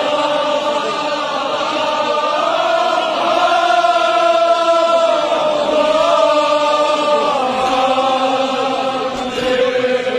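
A large crowd of men chanting together in unison, holding long drawn-out notes that shift in pitch every second or two.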